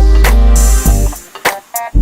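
Background music: a beat-driven track with heavy bass, sharp percussion hits and plucked, guitar-like notes.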